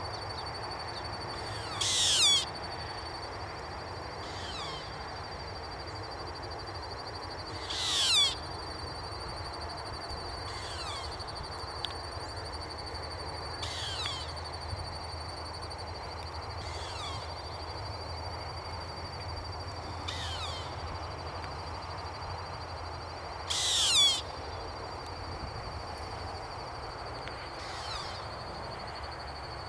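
Juvenile short-eared owls calling: three loud, short, downward-sweeping screeches several seconds apart, with fainter calls of the same kind in between. A steady high thin tone runs underneath throughout.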